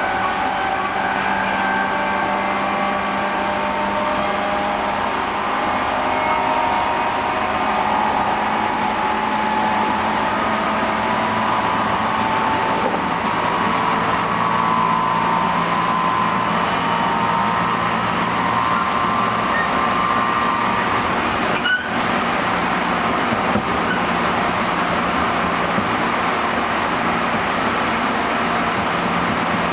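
Running noise inside a JR Central 211 series electric motor car (MoHa 210-5017) at speed. The traction motors and gears give a loud whine of several tones that drift slowly up and then hold. This car is known for unusually harsh running noise. One sharp click comes about two-thirds of the way through.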